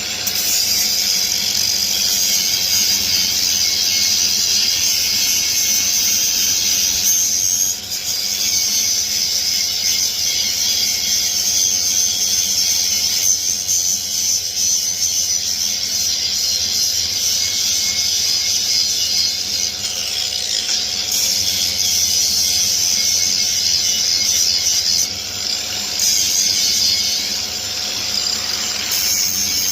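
Angle grinder working a piece of scrap wood, a loud steady high-pitched grinding whine that eases off briefly a few times, around 8, 21, 25 and 29 seconds in.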